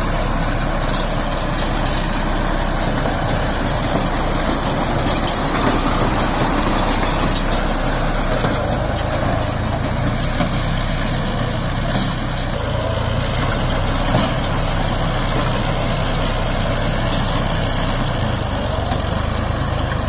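Deutz-Fahr Agromaxx 4050E tractor's diesel engine running steadily under load as it pulls and powers a round straw baler.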